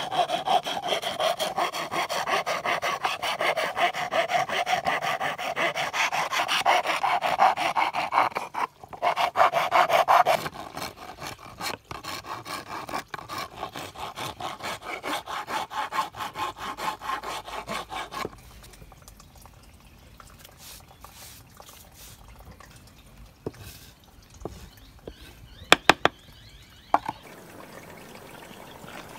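Steel hand file scraping across the rim of a gum-wood bowl blank in rapid back-and-forth strokes, with a brief pause about nine seconds in. About eighteen seconds in the filing stops and it goes much quieter, with a few sharp clicks and knocks near the end.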